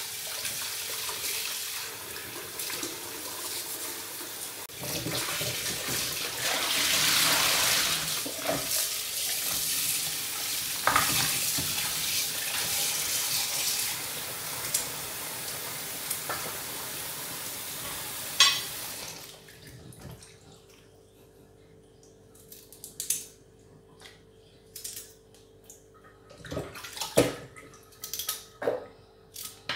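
Kitchen tap running into a plastic bowl in a stainless steel sink as carrots are washed and scraped, with scattered clicks and knocks. The water cuts off sharply about two-thirds of the way through, leaving short scrapes and knocks from peeling carrots over the bowl.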